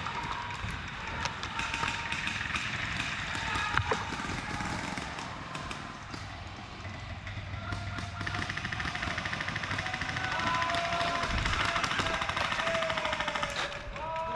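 Airsoft field ambience: distant players calling out, with a fast rattle of airsoft gunfire about two-thirds of the way in.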